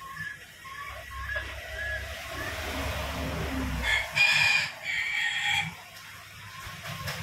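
A rooster crowing once, loud and drawn out, starting about four seconds in and lasting under two seconds.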